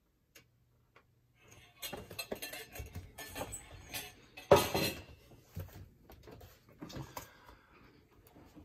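Frying pan and kitchen utensils clattering: a run of knocks and scrapes of metal and cookware, the loudest about four and a half seconds in.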